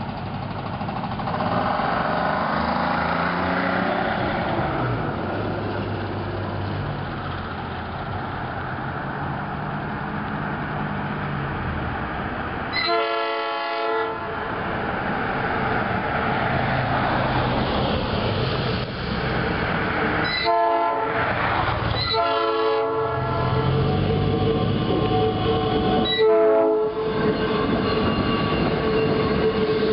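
South Shore Line electric interurban train running along street tracks, rumbling as it approaches and sounding its horn in four separate blasts over the second half. A steady hum joins in as it draws close and passes near the end.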